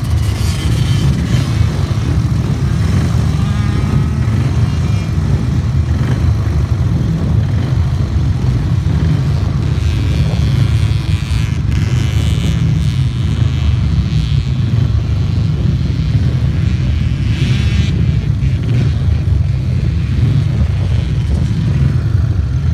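Junior grasstrack motorcycles buzzing as they lap the track, one passing close at the start and others farther off, over a heavy, steady low rumble.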